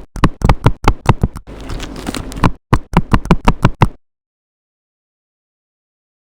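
A rapid series of sharp taps or clicks, about four or five a second, that cuts off abruptly into dead silence about four seconds in.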